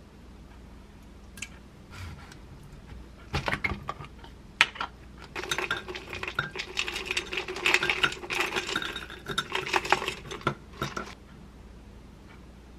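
Granola poured from a glass jar into a glass mug, the clusters rattling and clinking against the glass for several seconds. A few sharp clinks of glass and utensil come just before the pour.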